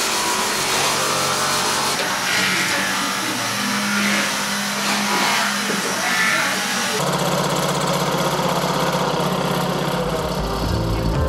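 Electric workshop machine running steadily with a coarse hiss of material being worked; the sound changes abruptly about seven seconds in to a steadier hum.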